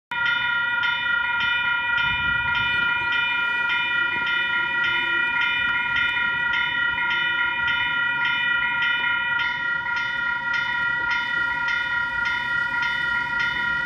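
Level crossing warning bell ringing steadily at about two strokes a second, signalling an approaching train.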